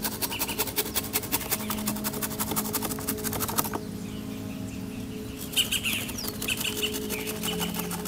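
Birds chirping, over a fast, even clicking that stops suddenly about three and a half seconds in.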